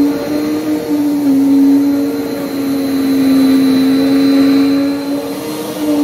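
Upright vacuum cleaner running on carpet, its motor giving a steady whine over a rushing hiss. The pitch sags slightly for a few seconds and comes back up near the end as the cleaner is pushed along.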